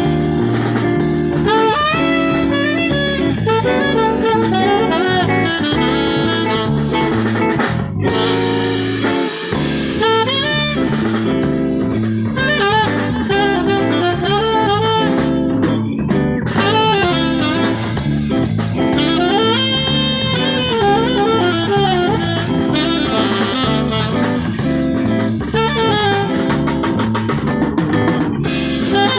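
Live band playing jazz, a saxophone carrying the melody over bass and drum kit.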